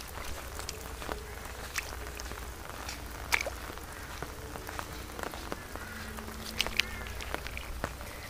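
Small water splashes and drips as a hand gropes through shallow muddy water among grass stems, with a few sharp separate ticks a second or more apart.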